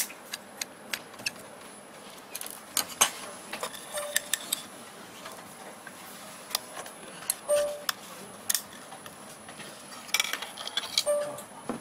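Irregular sharp clicks and taps of small plastic and metal parts being handled: a screwdriver working on a mobile phone's circuit board, then plastic brackets pried off the board and set down on a wooden tabletop.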